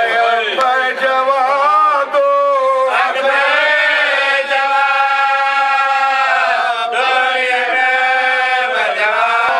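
A man's voice chanting a nauha, a Shia Muslim lament, into a microphone, drawing out long, wavering held notes, one of them lasting about four seconds in the middle.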